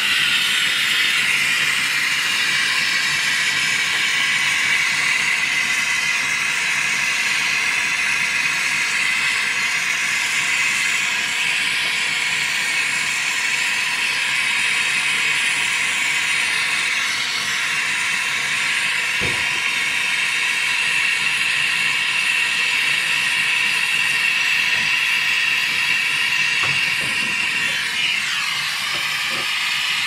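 Gas brazing torch flame hissing steadily as it heats the copper refrigerant-line joints on a refrigerator compressor to unbraze the pipes.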